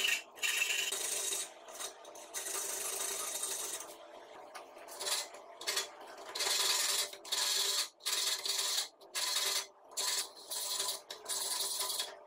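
Flat hand file rasping back and forth across the edge of a steel strip held in a bench vise: about a dozen uneven strokes with short pauses between them.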